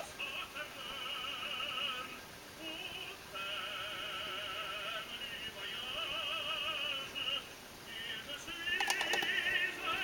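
Background music: a high, operatic-style singing voice with strong vibrato, sung in phrases with short breaks. A short cluster of clicks comes near the end.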